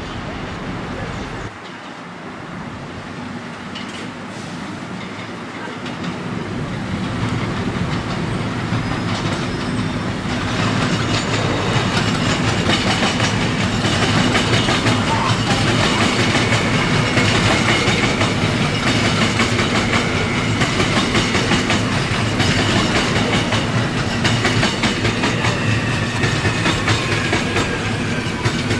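A train running past on the tracks, growing louder over the first ten seconds or so and then staying loud. Its wheels click rapidly over the rail joints, with a faint high squeal or whine above.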